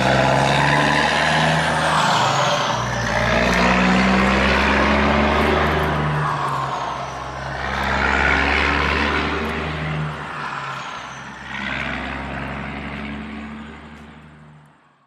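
Big truck's engine running, with the sound swelling and easing several times, then fading out near the end.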